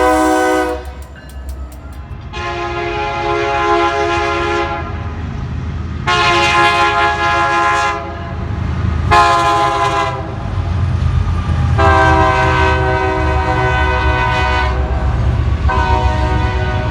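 A locomotive's "Narrow Font" Nathan K3LA/K3HA three-chime air horn sounding a series of blasts: the end of one, then long, long, short, long, the grade-crossing warning pattern, and another blast near the end. The train's low rumble runs beneath.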